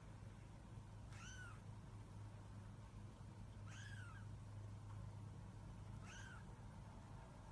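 A cat mewing faintly three times, about two and a half seconds apart, each call a short high-pitched mew that rises and falls, over a low steady hum.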